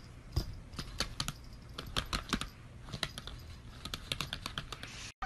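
Laptop keyboard keys clicking in uneven taps, several a second.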